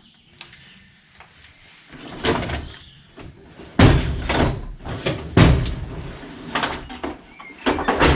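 Several heavy thuds and knocks of things being set down and shifted about on a workbench, the loudest about four and five and a half seconds in.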